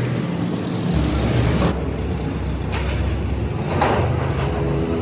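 Heavy vehicle engine running steadily, with two short sharp knocks around the middle.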